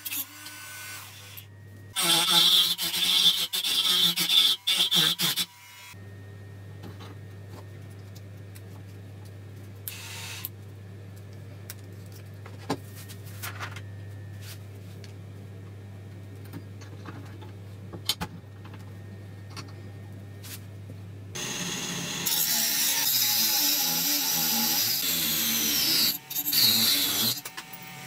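Proxxon rotary tool's abrasive cutoff disc grinding through a steel screw held in a vise. The grinding comes in two loud spells, a few seconds in and again about three quarters of the way through, with a quieter stretch of low hum and light clicks between.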